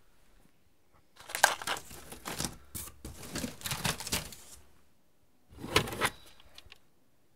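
Plastic VHS cassettes clattering and rattling as they are rummaged through in a box. After a short pause there is a second, briefer burst of plastic handling as one cassette in its sleeve is picked up.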